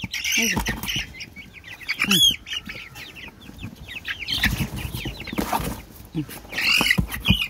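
A group of young chickens peeping and chirping, many short high calls overlapping throughout. A few dull thumps and some rustling come in about half a second in, midway, and near the end.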